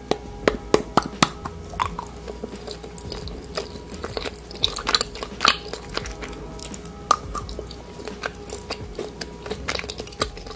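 Close-miked chewing and biting of edible lipstick- and eyeshadow-shaped sweets, with many sharp crunchy clicks, over faint background music.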